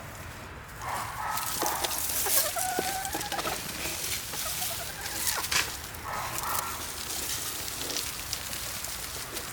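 Chickens clucking, with a rooster crowing once about two seconds in.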